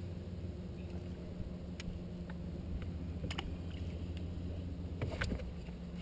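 Steady low hum of a bass boat's bow-mounted electric trolling motor, with a few faint sharp clicks from casting and reeling a lure.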